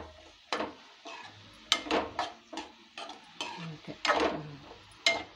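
Metal slotted spatula scraping and clattering against a kadai while stir-frying soya chunks with sliced onions, green chillies and curry leaves: about a dozen sharp strokes in an uneven rhythm, roughly two a second.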